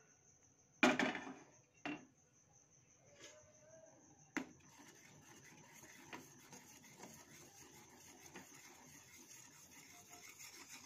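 A steel ladle knocks against a stainless-steel saucepan, once sharply about a second in and more lightly twice after. It then scrapes and rubs around the pan as it stirs milk that is heating on the stove.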